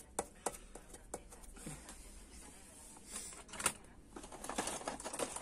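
Light clicks and clinks of a small metal washer and nut handled by fingers at a jack on a metal chassis panel, then rummaging and clattering among tools on the workbench.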